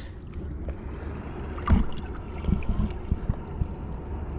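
Wind rumbling on the microphone beside the rock pools, with a few soft knocks, the loudest about a second and a half in.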